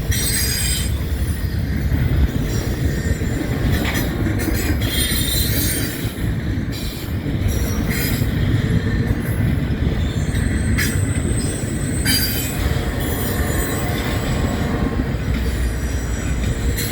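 Freight train rolling past: a steady low rumble of steel wheels on rail, with high-pitched wheel squeal that comes and goes, and a few sharp clicks.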